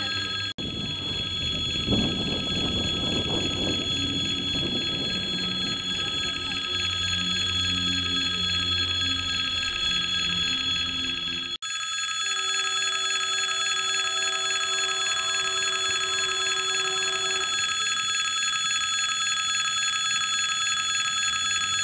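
Railway crossing warning bell ringing without a break. A lower rumble runs beneath it through the first half, and a few held lower tones follow for several seconds after the midpoint.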